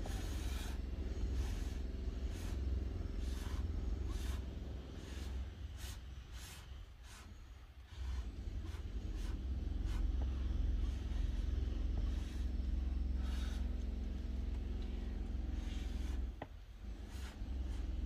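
Short puffs of breath blown through a drinking straw, repeated in quick bursts at first and more sparsely later, pushing wet acrylic pouring paint across a canvas. A steady low hum runs underneath.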